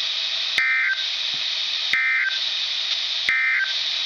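NOAA Weather Radio sending the EAS end-of-message code: three short bursts of warbling digital data tones, a little over a second apart, over steady radio static hiss. The bursts mark the end of the severe thunderstorm warning broadcast.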